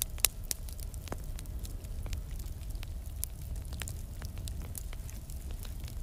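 Fire crackling: irregular sharp pops and snaps over a low, steady rumble, with one louder pop about a quarter of a second in.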